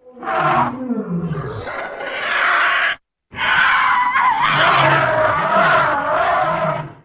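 Two harsh elephant calls used as creature sound effects, with a brief silence between them about three seconds in. The first falls in pitch and the second is longer, its low pitch wavering up and down.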